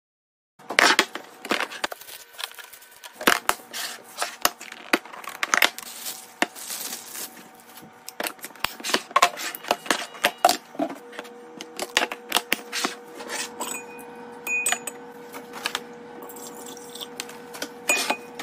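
Groceries and packaging handled during a restock: a quick string of sharp clicks, taps and knocks of containers and items being set down, with rustling and tearing of packaging between them. A faint steady hum runs through the second half.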